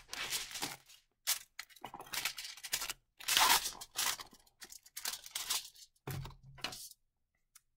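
Aluminium foil crinkling and tearing as a sheet is ripped off the roll against the edge of the foil box, in a series of short rasping tears. The tears are loudest about three seconds in and stop about a second before the end.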